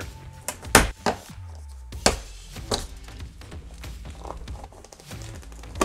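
A few sharp knocks and taps from handling and removing a cargo van's ceiling liner panel, the loudest about a second in, over background music.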